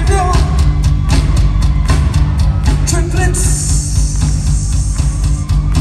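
Rock band playing live and loud, heard from the arena crowd. A steady drum beat over heavy bass, a lead vocal line briefly at the start and again about three seconds in, and cymbals washing in over the second half.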